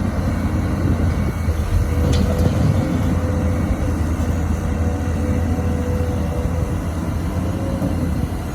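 Heavy diesel engine of an XCMG XE215C excavator running steadily: a deep, even rumble with a thin steady tone above it.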